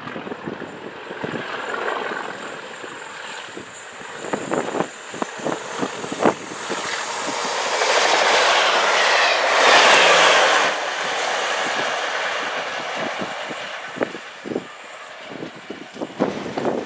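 Locomotive-hauled Network Rail test train led by class 97/3 diesel 97301 passing at speed, its diesel engine working hard. A rush of wheels on rail with sharp clicks over rail joints builds to its loudest about eight to eleven seconds in, drops off suddenly, then fades as the train draws away.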